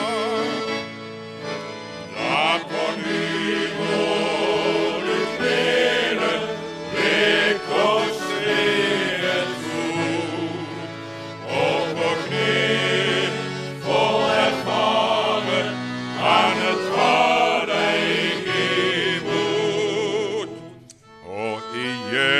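Men's choir singing a slow hymn. The sound dips briefly near the end and then swells again as the next phrase begins.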